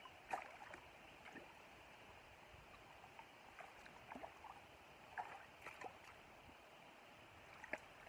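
Faint, steady river water, with a few small splashes and drips scattered through it as hands work in the shallows, releasing barbel one by one.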